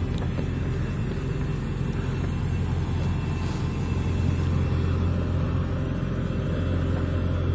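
Steady low engine drone of vehicles crawling along a road: a tractor towing a slurry tanker, heard from the vehicle following close behind it.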